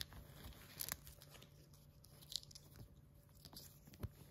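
Quiet handling of small earrings and their packaging: a few light clicks and soft rustles, the sharpest click near the end, over a faint steady low hum.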